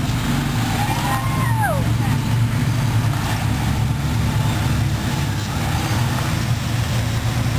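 Steady low drone of a vehicle engine running, unchanged throughout. About a second in, a short tone rises and then falls away.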